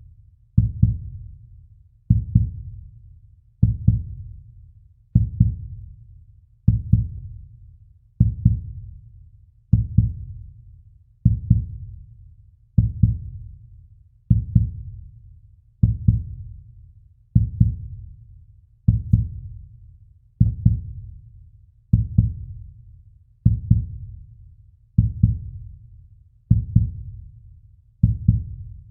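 Heartbeat sound effect: deep double thumps, lub-dub, repeating slowly and evenly, about one beat every one and a half seconds, each dying away before the next.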